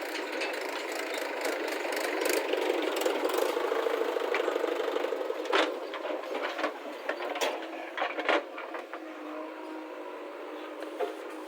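Backhoe loader's diesel engine running steadily, a little louder for a few seconds, with several sharp metallic clanks in the second half.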